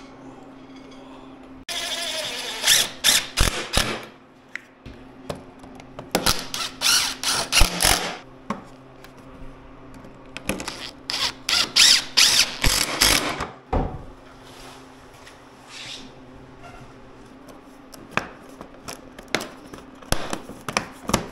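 Cordless DeWalt Atomic driver running in three bursts of about two seconds each, driving screws into a snowmobile's plastic hood panels. Shorter clicks of plastic parts being fitted follow near the end.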